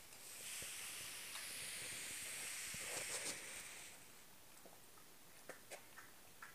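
A steady hiss for about the first four seconds, then a few soft clicks as a puppy eats from a bowl.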